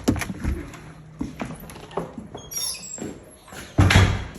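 Scattered knocks and handling noises from someone on the move. There is a brief cluster of high squeaks about two and a half seconds in, and a loud low thump near the end.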